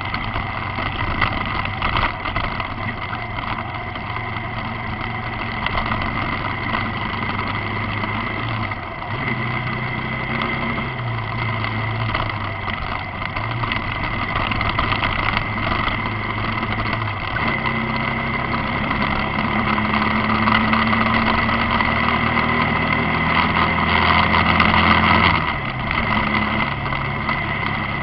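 A vehicle's engine running under way, its pitch stepping up and down several times with gear changes and speed, over steady wind and road noise. It grows louder towards the end, then drops off sharply.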